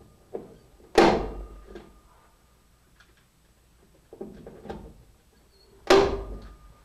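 Hand staple gun firing twice, about five seconds apart, driving crown staples over thin low-voltage wires along a garage door jamb, with faint handling clicks between the shots.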